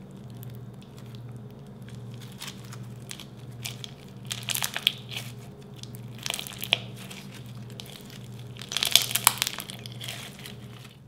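Clear slime full of small tube-shaped plastic beads being squeezed and kneaded by hand, the beads crunching and clicking against each other. The crunching comes in bursts, strongest about four and a half, six and a half and nine seconds in.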